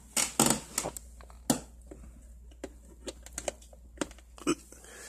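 Clicks and knocks of a power cord and its plug being handled at a power strip, coming at an uneven pace, with a few louder ones about a third of a second in, around one and a half seconds in, and near the end.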